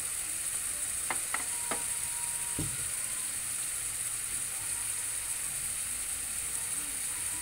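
Beef chunks in sauce sizzling in a frying pan on a gas stove, a steady hiss, with a few light clicks and one soft knock between one and three seconds in.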